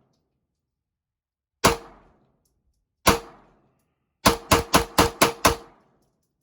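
Glock pistol firing: two single shots about a second and a half apart, then a quick string of six shots in just over a second, each with a short ringing echo.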